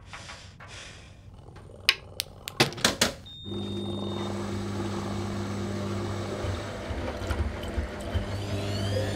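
Cartoon washing machine starting up: a few sharp clicks and a short electronic beep, then a steady low motor hum with churning as the drum turns. Rising whirring pitches begin near the end as the machine speeds up.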